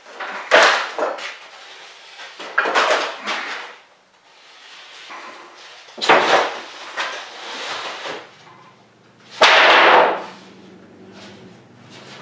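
A plywood sheet being lifted, slid and dropped onto a 2x4 wooden shelf frame: four loud scraping knocks of wood on wood, the loudest near the end, with quieter shuffling between.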